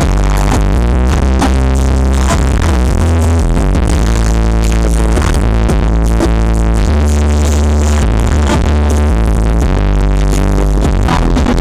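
Electronic dance music with long, heavy bass notes, played loud through a large outdoor PA sound system being tested.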